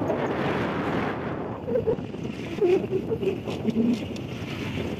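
Wind rushing over the microphone of a moving vehicle, with road and engine noise underneath; the rush is loudest in the first second or so and eases a little after.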